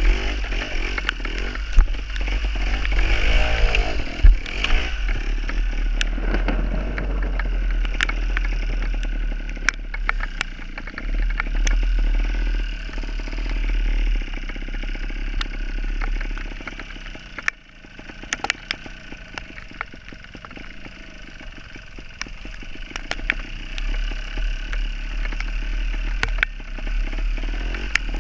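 Gas Gas TXT270 trials motorcycle's two-stroke engine running as it is ridden, revving up and down, with scattered sharp knocks and clatter. The engine drops away briefly about two-thirds of the way through, then picks up again.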